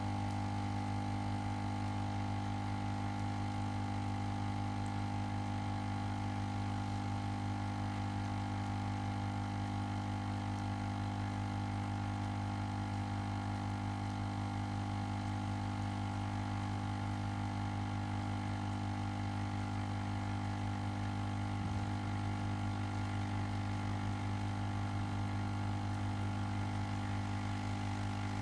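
Ozone generator running with a steady electrical hum, a strong low tone with fainter higher tones above it, unchanging throughout.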